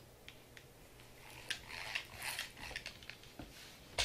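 Small metallic clicks, rattles and scraping as an old metal electric drill is turned over and its chuck and housing worked by hand, busiest in the middle, ending with a sharp knock as it is set down.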